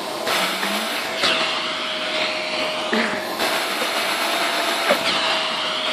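Household vacuum cleaner running steadily, a constant whine over the rush of air, its sound changing briefly a few times as the suction shifts.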